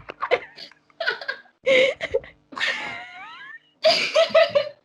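A person laughing in short bursts, with a high wavering squeal that falls in pitch about three seconds in, then a quick run of rhythmic 'ha-ha-ha' pulses near the end.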